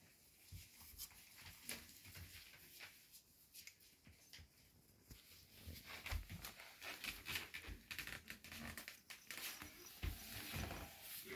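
Cocker spaniel puppies shuffling and climbing over each other on fleece bedding: faint rustling and scratching with scattered soft clicks and a few low thumps, busier in the second half.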